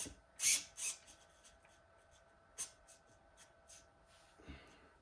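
Hands handling small parts or a radio at a workbench: a series of short scratchy rubs and light clicks, three close together in the first second and then a few scattered ones, over a faint steady hum.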